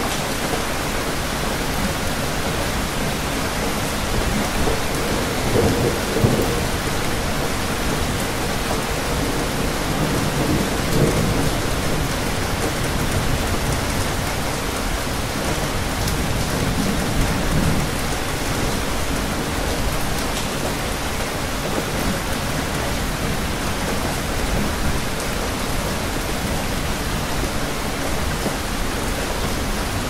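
Steady rain falling as an even hiss, with low rumbles of thunder swelling up a few times in the first twenty seconds or so.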